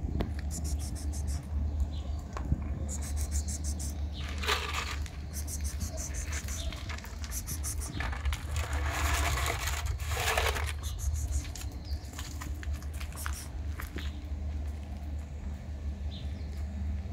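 Dry cat food poured from a rustling bag onto asphalt in two rushes, the longer lasting about two seconds, around the middle. Insects chirp in short, fast-pulsing bursts several times over a steady low rumble.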